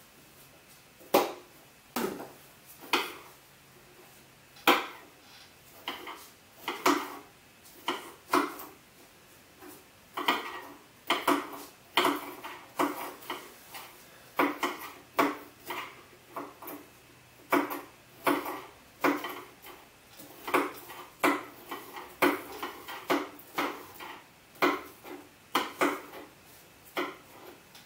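Kitchen knives chopping green bell peppers: irregular sharp knocks as the blades come down through the pepper onto the cutting surface, about one a second at first and coming faster in the second half.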